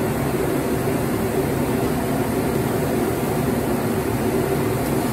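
A large round Mongolian-grill griddle cooking a pile of noodles and vegetables gives a steady hiss and rumble, with no sharp knocks or breaks.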